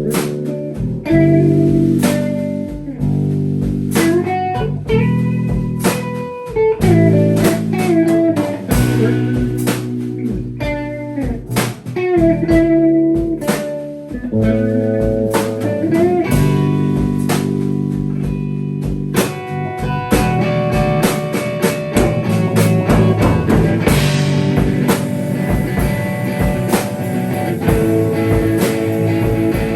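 Improvised band music: electric guitar playing held and bending notes over a drum kit. The drums grow busier with more cymbal about two-thirds of the way through.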